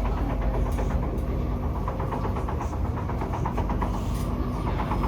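Kawasaki-Nippon Sharyo C751B metro train running between stations, heard from inside the car: steady running noise with a rapid, repeated knocking. The knocking is not from flat wheels, the uploader is quite sure.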